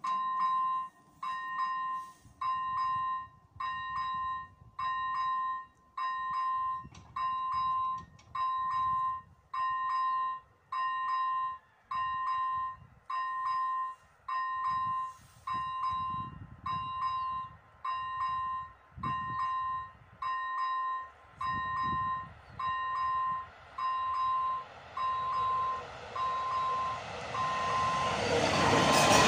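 AŽD 97 level-crossing warning signal's electronic bell sounding a repeating tone about once a second, warning that the crossing is closed for a train. Over the last few seconds the noise of the approaching train rises.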